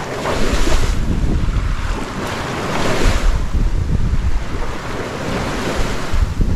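Water rushing and hissing along the hull of a sailing yacht under way, surging in washes every two to three seconds as the bow wave breaks. Heavy wind buffets the microphone throughout.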